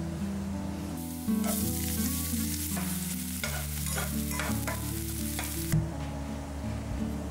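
Food sizzling in hot oil in a frying pan, stirred with a few clicks of the spatula. The sizzle starts suddenly over a second in and cuts off near the end.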